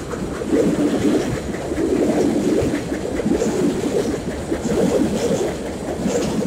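R62A subway train running over a steel elevated viaduct, heard from beneath: a loud, steady rumble with faint clacks from the wheels on the rails.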